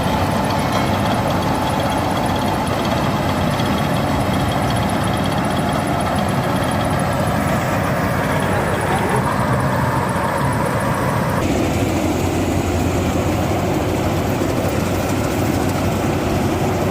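Combine harvester running steadily while it cuts paddy rice, its engine and cutting machinery making a continuous mechanical drone. About two-thirds of the way through, the sound turns suddenly duller.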